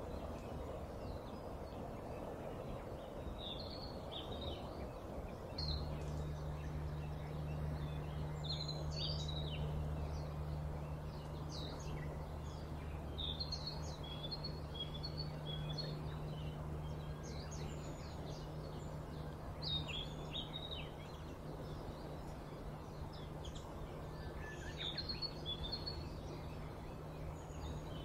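Small birds chirping and calling in short, scattered notes over background ambience. A steady low hum begins about five and a half seconds in.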